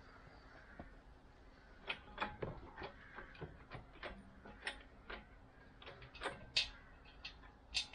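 A run of irregular, sharp clicks and light knocks, starting about two seconds in, as small hard objects are handled, over a faint steady hum.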